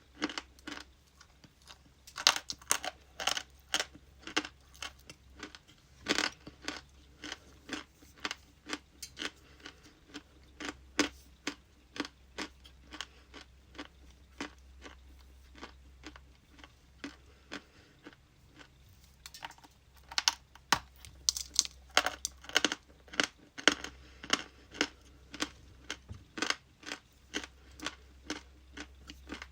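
A person biting and chewing pieces of ice, giving sharp crunches in quick irregular runs of a few a second, with louder clusters now and then.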